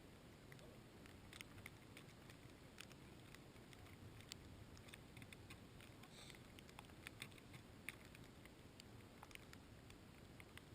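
Faint, irregular light ticks and taps, several a second at uneven spacing, over a low steady rumble.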